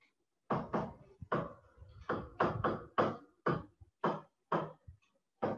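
A stylus tapping and stroking on a digital writing surface while a formula is handwritten. A quick series of about a dozen short taps and strokes starts about half a second in.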